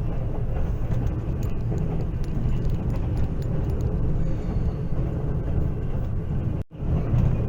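Steady low rumble of a moving train, broken by a brief drop-out near the end.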